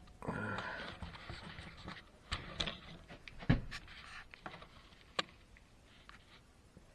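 Handling noises as things are moved and set down: a short rustle, then a few scattered knocks and clicks, the sharpest about three and a half seconds in.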